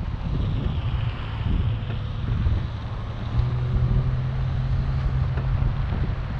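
Chevrolet Colorado ZR2 pickup driving a dirt trail: low engine and tyre rumble under wind buffeting the outside camera's microphone. A steadier engine hum sets in about halfway through.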